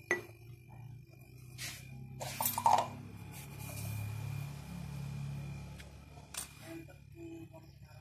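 Refrigerator compressor running with a low hum while thinner and vapour spray and sputter out of an open copper pipe into a plastic cup, a hiss that swells in the middle, with a few sharp clinks. This is the compressor pushing thinner through the evaporator to flush out a blockage.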